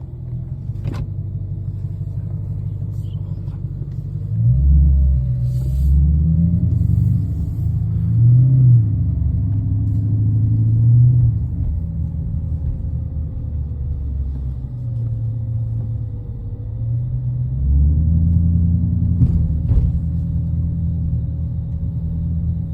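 Dodge R/T's V8 engine rumbling at low speed while the car is manoeuvred, swelling louder about four seconds in and again near eighteen seconds as the throttle is opened, then settling back.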